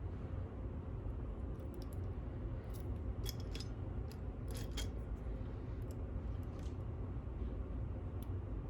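Small metallic clicks of a lock pick and tension wrench working the pins inside a U-Shin Showa NX lock, bunched about three to five seconds in, with a few more near the end, over a steady low rumble.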